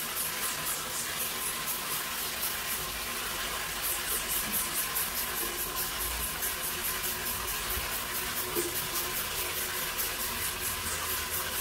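Steady hiss of water in a shower enclosure, with a quick, regular high-pitched ticking over it, about three a second.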